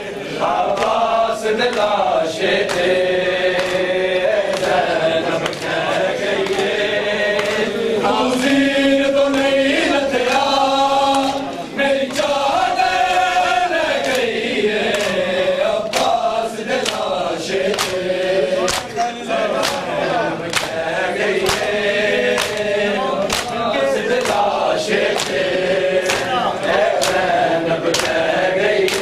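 Group of men chanting a noha lament in unison. A steady beat of sharp chest-beating (matam) slaps keeps time.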